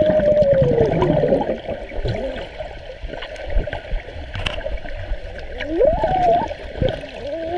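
Underwater in a swimming pool: bubbling and gurgling water against the camera. Muffled sliding tones rise and fall near the start and again about six seconds in.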